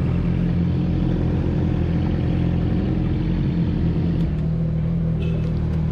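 Yamaha R6's inline-four engine idling steadily through an Akrapovic full exhaust, with a slight shift in its note about four seconds in.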